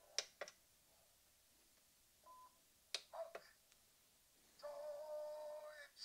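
Electronic sound effects from the Playmobil Klingon Bird of Prey 71089 toy's sound module, faint: a few sharp clicks, a short beep a little over two seconds in, then a longer buzzy electronic tone of several pitches for over a second near the end.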